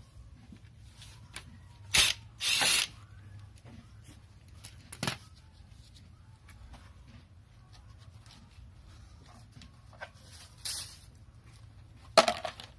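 Hand tools working on an engine: scattered sharp metal clicks and clinks, a couple of brief rasping bursts, and a louder clatter near the end.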